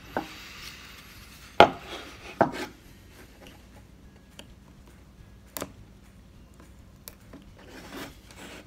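Carving knife cutting into a wooden carving blank: several separate sharp cuts and snaps as chips come away, the loudest about a second and a half in, with softer scraping between them and near the end.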